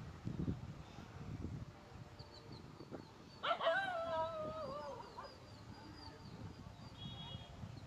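A single drawn-out animal cry, about a second and a half long, high and falling slightly in pitch, about halfway in. Faint high bird chirps are heard around it, over a low rumble.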